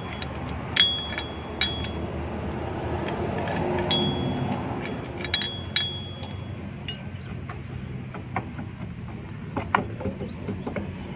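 Socket wrench and extension clinking on the steel rear wheel hub while its four bolts are undone: a scattered series of sharp metal clicks, several ringing briefly, over a steady low background hum.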